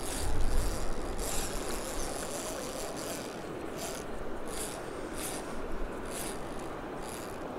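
Close-up handling noise of fishing tackle: a string of short scrapes and rustles, about ten in all, as fingers work the line and jig at the rod and reel.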